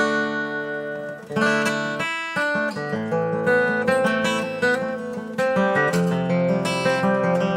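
Epiphone FT-130 acoustic guitar being strummed: a chord left to ring, a fresh strum about a second and a half in, then a run of quicker strummed chords.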